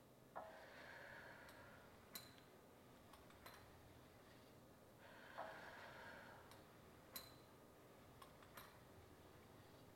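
Faint exhalations about a second long, twice, about five seconds apart, one per press, with a few light metallic clicks from the Pilates reformer's carriage and springs.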